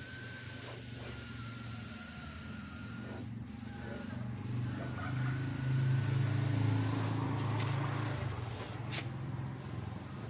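Air spray gun hissing as it sprays a melamine lacquer finish, the hiss cutting out briefly a few times as the trigger is let go. Under it runs the steady hum of a small air compressor's motor, louder in the middle.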